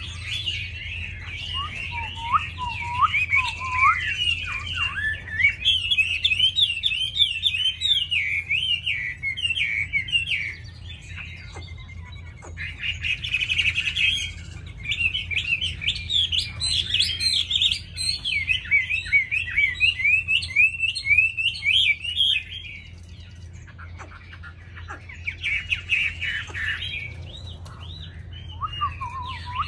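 Chinese hwamei singing a long, varied song of rapid whistled phrases, pausing briefly about 11 seconds in and again about 23 seconds in. Harsher, scratchier passages come in around 13 and 26 seconds.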